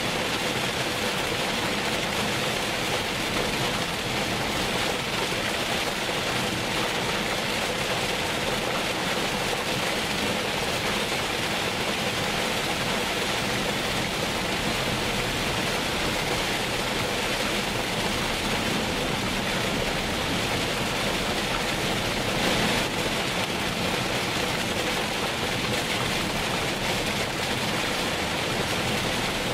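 Heavy rain on a moving car, heard from inside the cabin: a steady hiss of rain on the windshield and body mixed with wet-road tyre noise, with a brief louder swell about 22 seconds in.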